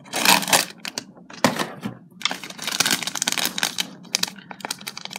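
Hands opening cardboard and plastic toy packaging: a perforated cardboard door on a Hairdorables doll box is pried open and a crinkly plastic blind bag is handled, making rapid crackles and clicks in several bunches.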